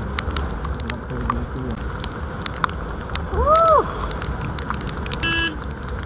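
Wind and road noise of a motorcycle ride in rain, with many sharp raindrop ticks on the camera. About halfway through, a short tone rises and falls and is the loudest moment, and a brief tone sounds near the end.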